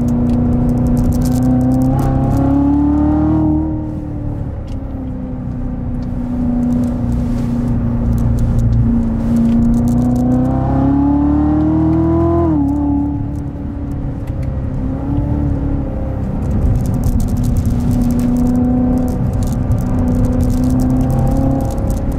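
2016 Corvette Z06's supercharged 6.2-litre V8 heard from inside the cabin while driving, holding a steady note and twice climbing in pitch under acceleration before dropping back suddenly, a few seconds in and again about midway.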